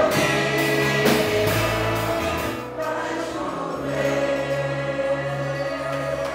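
Gospel worship music with a group of voices singing held notes over a steady bass accompaniment.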